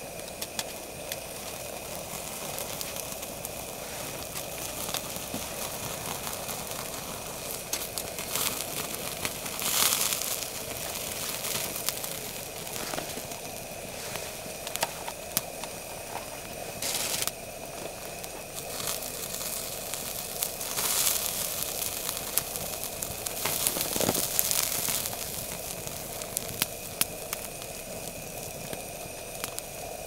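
Wood fire crackling in a small fire pit: irregular sharp pops and snaps, with a few louder bursts of crackling, over a steady hiss.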